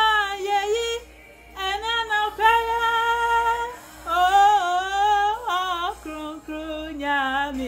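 A woman singing solo, holding long notes with a wavering vibrato in three phrases separated by short breaths, the last phrase lower in pitch.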